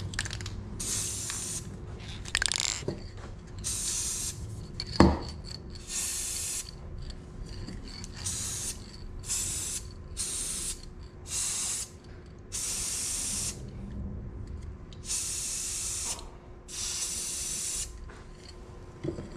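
Aerosol spray paint cans (Krylon Fusion) hissing in a long run of short bursts as paint is sprayed onto the water surface to build a hydro dip film, with one sharp knock about five seconds in.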